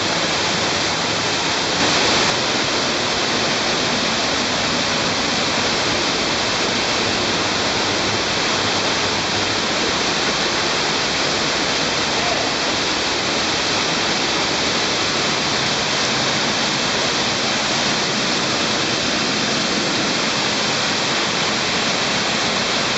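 Underground stream rushing and falling down a waterfall in a cave, a steady loud rush of water.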